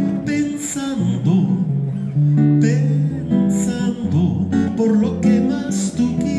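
A busker's acoustic guitar, strummed and picked, with a man singing along.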